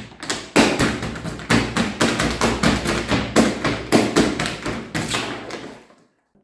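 Clear plastic water bottle crinkling and crackling as hands squeeze it, a long run of sharp cracks and pops in quick succession that thins out and stops near the end.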